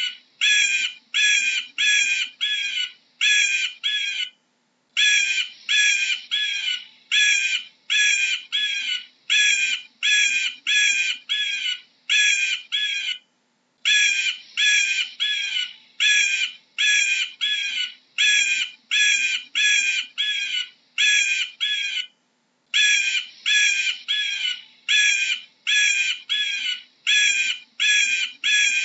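Eagle calling: a long series of short, high, piping calls at about two a second, in runs of ten or more broken by brief pauses.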